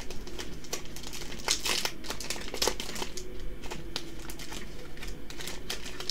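Foil wrapper of a Yu-Gi-Oh booster pack crinkling in irregular crackles as it is handled and the cards are drawn out of it.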